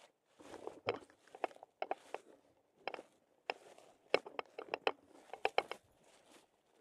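Footsteps crunching through dry fallen leaves, with clusters of sharp crackles coming irregularly about every half second to a second.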